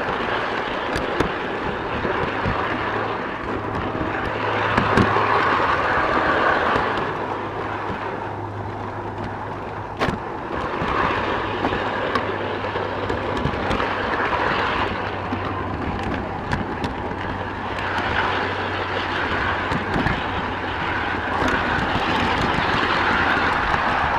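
Garden-scale model train running along its track with the camera aboard: a steady low motor hum under wheel-on-rail noise that swells and fades, with a few sharp clicks over rail joints.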